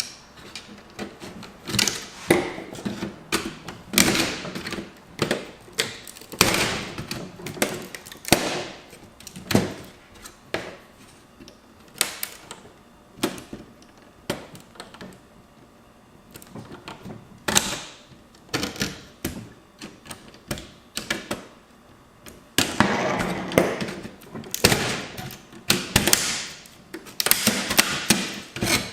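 Disassembled laptop's plastic and metal parts being handled: irregular clicks, taps and knocks, with longer scraping and rattling stretches near the end.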